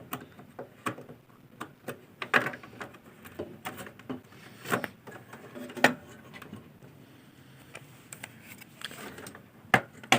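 Irregular clicks and knocks of hands working inside an open desktop computer, fitting a RAM module into its slot.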